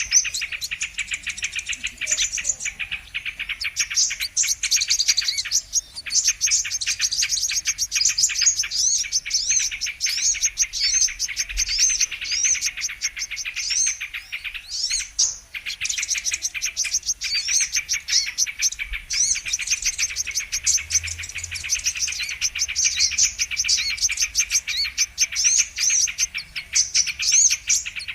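Brown-throated sunbirds (kolibri kelapa) giving rapid, high chirping and trilling calls, dense and unbroken, with many short notes overlapping.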